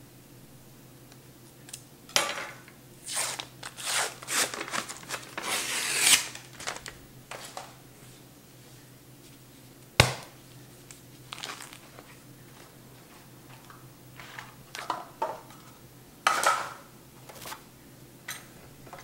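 Pillsbury tube of refrigerated crescent-roll dough being opened: the paper wrapper crinkles and tears in a quick run of rustles, then the tube bursts open with one sharp pop about halfway through. More handling rustles follow as the dough is unrolled out of the tube.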